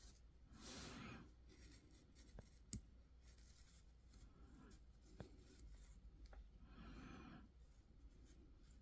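Faint rubbing and scraping on a small 3D-printed plastic part, with a few light clicks, as a printing nub is trimmed down.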